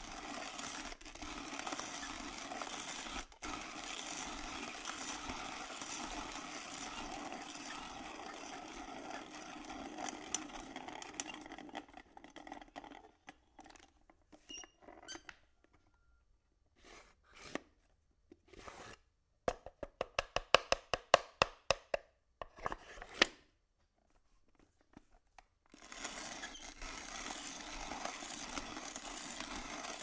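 Coffee grinder grinding beans with a steady grinding noise that stops about twelve seconds in. A few scattered knocks follow, then a fast run of sharp clicks lasting a few seconds, and the grinding starts again near the end.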